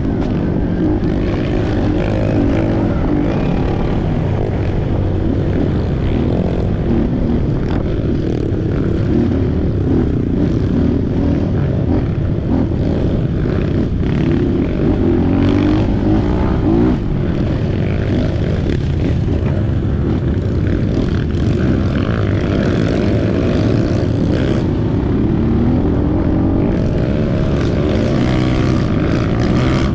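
Trail motorcycle engine running under way, its pitch rising and falling with the throttle, over a steady rush of noise.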